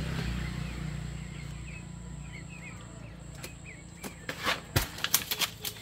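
A machete hacking at a jackfruit stalk in the tree: a quick run of sharp cuts and leaf rustles about four seconds in, after a few bird chirps.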